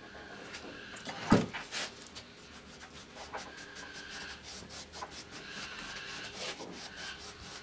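An acetone-soaked cloth wiped and scrubbed in quick back-and-forth strokes over a rough fibreglass surface, cleaning it before glassing. A single sharp knock about a second in is the loudest sound.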